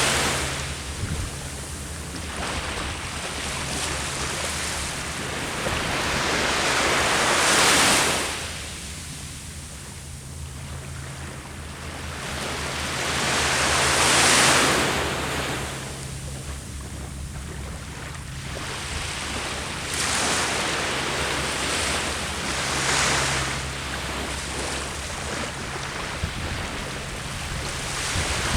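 Ocean waves breaking on a beach: the surf swells up and dies away in surges roughly every six to seven seconds, with wind rumbling on the microphone underneath.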